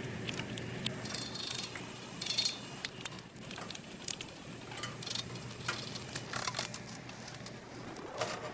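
Irregular mechanical clicks and metal clinks over a steady low hum.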